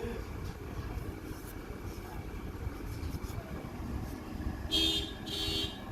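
Steady low engine rumble, with two short vehicle-horn toots near the end.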